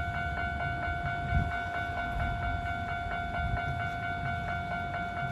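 Japanese level-crossing warning bell ringing: an electronic ding-ding repeating in a rapid, even rhythm, over a low rumble with one louder low thump about a second and a half in.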